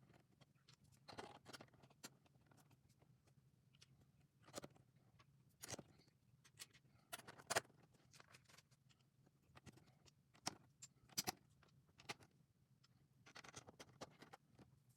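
Faint, irregular clicks and rattles of LEGO plastic bricks being handled and pressed together, with a couple of short rustling stretches, over a low steady hum.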